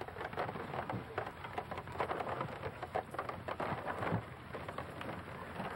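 Dense crackling and crunching of dry sand and grit on a dirt road as oxen walk past, made of many small irregular clicks.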